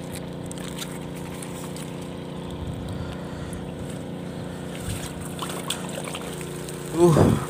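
Steady low drone of a motor, with a few faint ticks over it.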